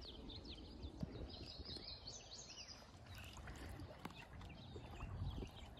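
Faint birdsong: many short chirps and trills, thickest a second or two in, over a low steady rumble.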